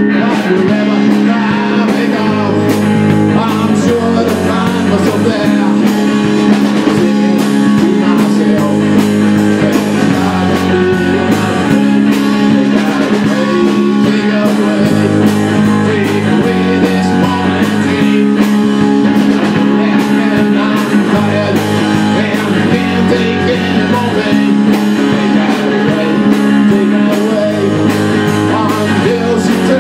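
Live rock band playing a blues-tinged rock song: electric guitars over a bass line and a drum kit keeping a steady beat.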